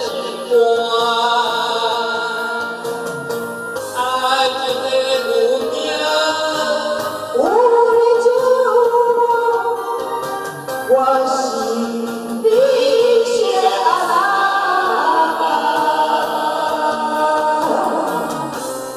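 A man and a woman singing a karaoke duet over a recorded backing track, with long held notes; near the end they sing a line together.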